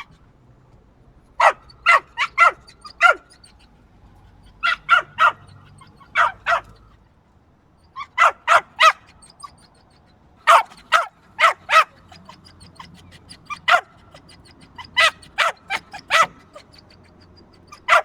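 A small dog barking in quick bursts of two to five short, high barks, with pauses of a second or two between bursts.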